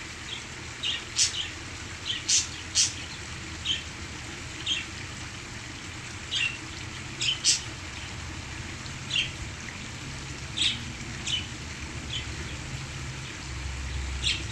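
Pet parakeets giving short, sharp chirps, one every second or so, over the steady rush of waterfall sound.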